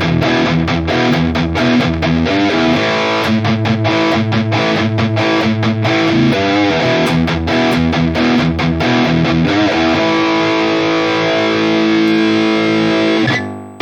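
Distorted electric guitar played through a NUX MG-30 modelling unit's high-gain rhythm tone, dry with delay and reverb off: a riff of quick repeated chugging strokes, then a held chord about ten seconds in that is cut off abruptly near the end.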